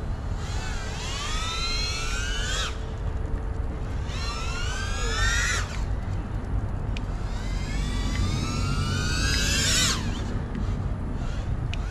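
FPV quadcopter's motors and propellers whining, rising in pitch as the throttle is pushed and then cutting off sharply, three times, over a steady low rumble.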